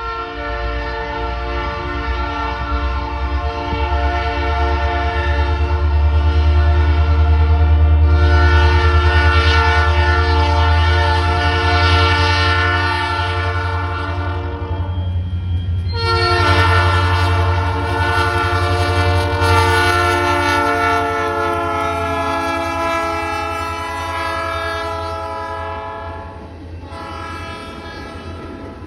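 Union Pacific diesel locomotive's horn sounding two long blasts, the second falling slightly in pitch, over the deep rumble of the locomotive's engine as it passes.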